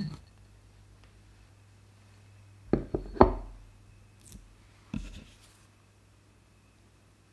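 Close-up handling of mozzarella cheese blocks on a ceramic plate and a wooden cutting board, as they are pushed onto skewered sausages. A quick cluster of knocks comes about three seconds in and is the loudest; a single knock follows near five seconds.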